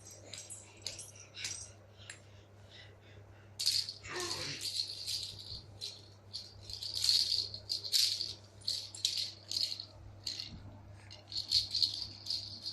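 A rattle shaken in quick bursts of rattling, faint at first and much louder from about four seconds in.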